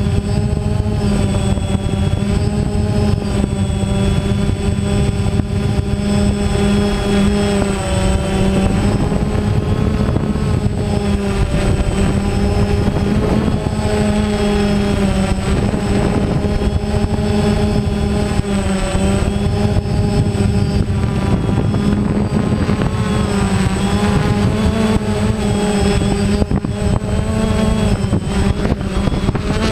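Small multirotor drone's motors and propellers whining steadily close to the microphone, the pitch rising and dipping a little every few seconds as the speed changes, with a faint thin high whistle above.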